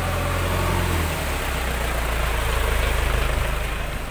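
Engine of a large truck running as it drives slowly past close by: a steady low rumble that grows louder, peaks about three seconds in, then starts to fade near the end.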